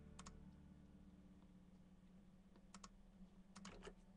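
Faint computer keyboard typing: scattered keystroke clicks, a pair just after the start, another pair a little under three seconds in, and a short run near the end, over near-silent room tone.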